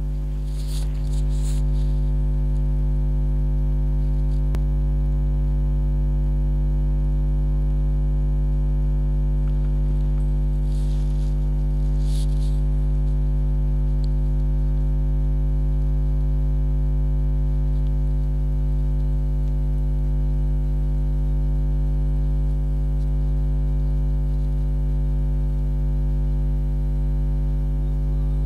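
Steady, loud electrical mains hum, a low buzz with many overtones. Brief soft rustles come about a second in and twice around eleven to twelve seconds in.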